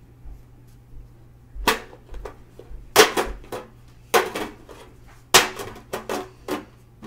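A quick run of about nine sharp crunches and crackles spread over five seconds as cookies are grabbed from their box and eaten, over a low steady hum.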